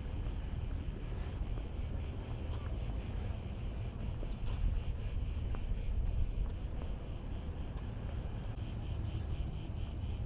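Steady high-pitched buzzing chorus of cicadas, over a low rumble.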